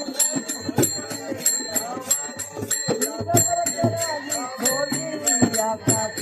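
Festival folk music between sung verses: steady drum beats with ringing, jingling metal cymbals or bells over them, and a pitched melodic line.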